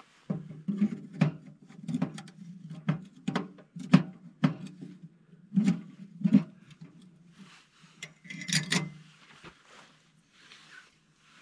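Metal clanks and scrapes from a steel ammo-can tent stove and its stovepipe being handled and fitted: a string of sharp knocks, about one or two a second, over a low drone. A longer, louder scrape comes near the end.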